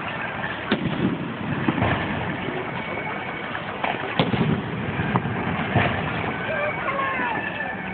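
Fireworks display: aerial shells bursting with a handful of separate bangs, the sharpest about four seconds in, over the chatter of the watching crowd.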